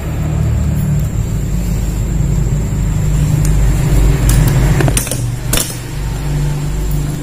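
Low rumble of road traffic passing by, swelling and easing, with a few sharp clicks or knocks over it, the loudest about five seconds in.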